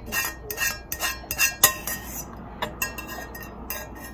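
Sharp clinks and taps of a utensil against a cooking pot as stuck ramen noodles are worked loose into a bowl, quick at first and then more spaced out.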